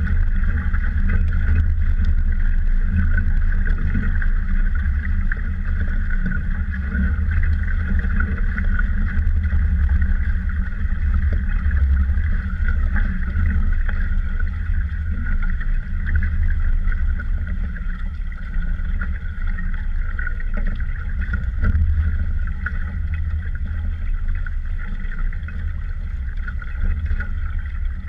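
Small sailboat under way: wind buffeting the microphone in a steady, fluctuating rumble, with water rushing past the hull as a steady hiss.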